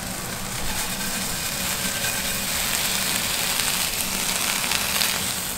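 Steady sizzling hiss of seared chicken-breast cubes in a hot frying pan as they are tipped out onto a plate.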